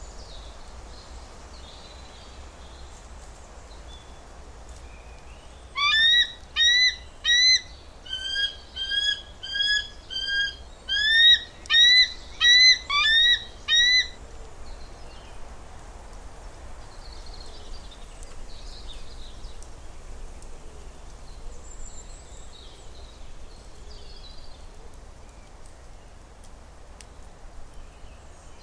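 Bald eagle calling: a string of about fourteen high, thin, chattering whistled notes in three quick runs, each note rising then falling in pitch, starting about six seconds in and lasting some eight seconds. Faint outdoor background with a few faint distant chirps.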